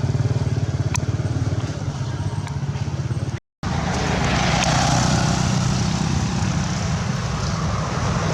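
Motorcycle engine running with a steady fast low pulse. It cuts out briefly about three and a half seconds in, then engine and road noise swell and fade as a vehicle passes.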